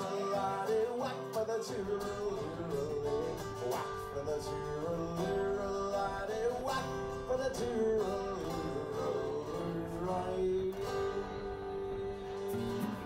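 A man singing to an acoustic guitar, a slow song with the guitar strummed under a held, wavering vocal line.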